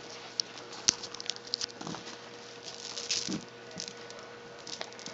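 Irregular light clicks and taps as a cat bats at a toy dangled for it to catch.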